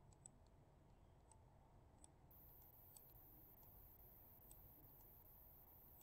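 Near silence with faint, irregular computer mouse clicks.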